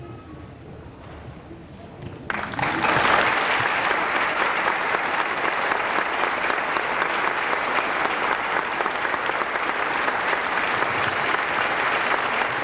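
Church congregation applauding, starting suddenly about two seconds in and continuing steadily.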